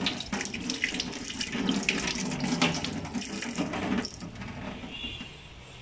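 Tap water running into a stainless steel kitchen sink as an apple is rinsed under it, with small splashes and knocks; the sound dies down about four seconds in.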